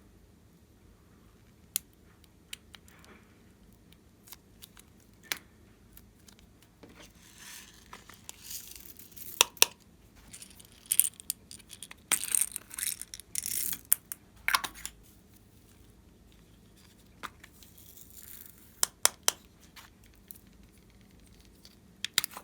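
Glossy slime being handled and pressed, making scattered sharp clicks and pops, with a denser run of crackling and sticky tearing sounds in the middle.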